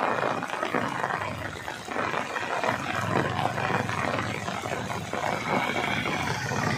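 Heavy rain pouring steadily onto a road, with an auto-rickshaw's engine growing louder as it approaches about halfway through.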